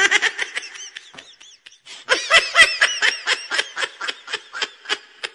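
A person laughing in rapid, high-pitched pulses, in two runs with a short break about a second and a half in.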